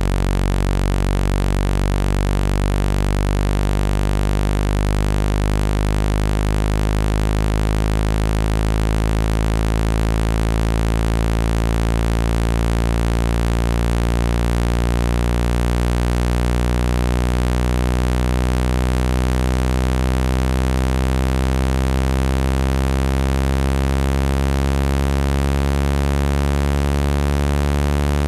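Synthesized low-pitched buzzing tone played to shake water out of an iPhone 17's speaker mesh. It is a continuous drone rich in overtones, slowly shifting in pitch.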